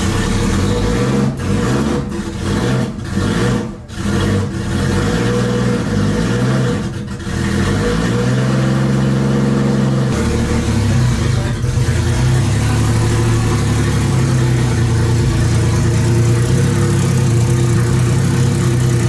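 Nissan Skyline engine revved in a series of rises and falls, with a few sharp cracks among them, then settling at about eight seconds into a steady idle, running roughly after two years of sitting.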